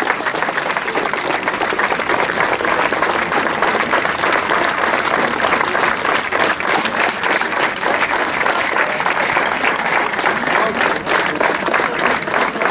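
Spectators applauding: dense, steady clapping from many hands.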